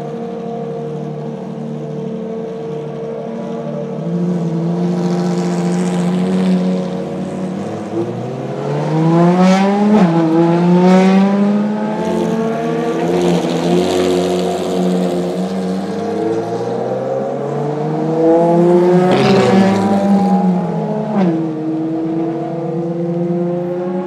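Ferrari FXX K Evo V12 engines idling, then revving up twice: the pitch climbs about eight seconds in and falls back, and climbs again from about sixteen seconds before dropping back to idle, with sharp cracks at the top of each climb.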